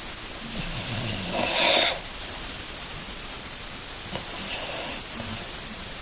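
A dog with tracheal collapse snoring: two noisy, wheezing breaths, a loud one about a second in and a fainter one near the end. The owner puts the loud breathing noise down to the collapsed trachea.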